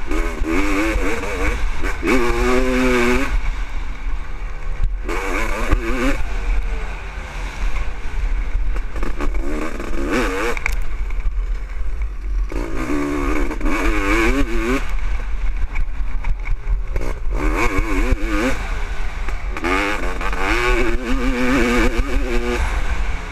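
1996 Honda CR500 500cc two-stroke motocross engine being ridden hard, heard from the rider's helmet: the revs climb and drop back in repeated surges a few seconds apart as the throttle is worked.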